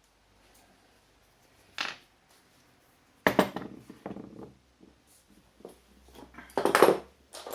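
Hand tools clinking and clanking against metal as a stubborn bolt on a motorcycle cover is worked loose: a single knock about two seconds in, then a run of loud clanks, the loudest near the end.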